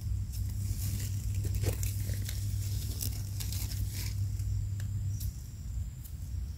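Small knife scraping soil from the stem base of a freshly picked yellow Amanita mushroom: a run of short, dry, irregular scratches and clicks over a steady low hum.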